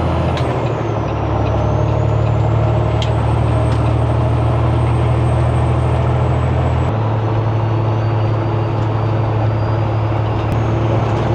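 Semi truck's diesel engine running steadily under way through 8-inch exhaust stacks, its note shifting about a second in and again about seven seconds in. A thin high turbo whistle dips, rises and holds above it.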